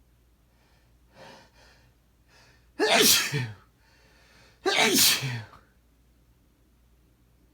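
A man sneezing twice, about two seconds apart, each sneeze preceded by a sharp inhaling breath and ending in a falling voiced tail.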